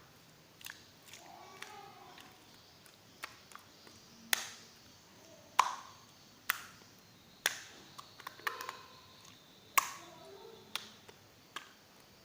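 Clear jelly slime being handled, pressed and poked, giving a dozen or so sharp pops and clicks at irregular intervals.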